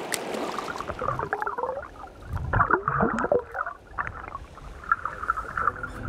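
Water gurgling and splashing close by, in irregular bursts, loudest around the middle.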